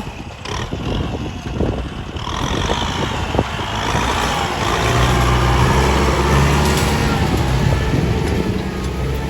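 Kubota L4018 tractor's diesel engine working under load. It grows louder over the first few seconds, with a wavering whine entering about two seconds in and a steady deep drone from about halfway.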